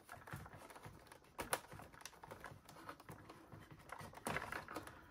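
Faint clicking and tapping of hard plastic toy parts being handled, as an action figure and its seat belt are fitted into a toy helicopter's cockpit, with one sharper click about a second and a half in.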